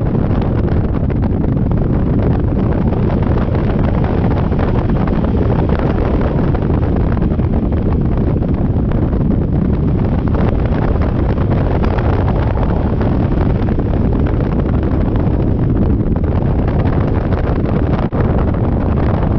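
Wind buffeting the microphone on a moving scooter: a loud, steady low rush with no clear engine note. It dips for an instant about 18 seconds in.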